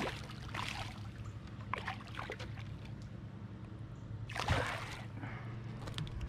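A small snook thrashing and splashing at the water's surface beside the boat as it is landed by hand, in several short splashes, the loudest about four and a half seconds in. A steady low hum runs underneath.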